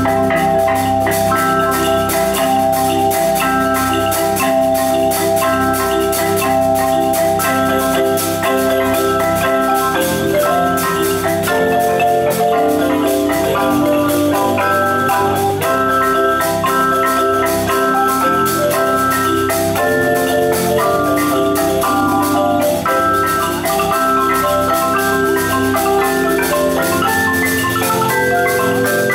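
A marimba ensemble of several players performing together: a continuous stream of fast mallet strokes on wooden bars, with held chords that change every second or so beneath a higher line.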